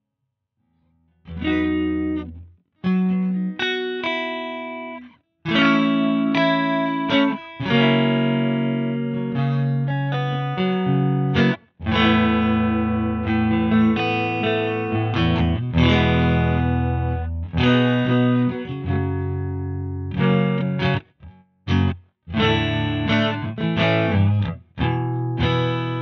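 Electric guitar strumming chords through a TC Electronic Mimiq Mini doubler pedal. The playing starts about a second in, stops briefly between phrases, and ends on a chord left to ring out.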